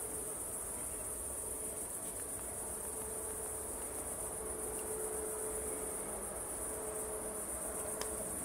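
Crickets chirping in a steady, high-pitched chorus, with a faint steady hum underneath.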